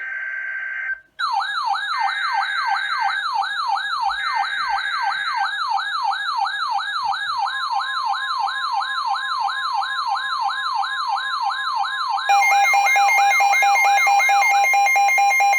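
Electronic emergency alert tones. After about a second of buzzy electronic tone, a siren-like tone sweeps rapidly up and down about two to three times a second, and a steady tone joins it about halfway through. Near the end a fast-pulsing alarm beep takes over.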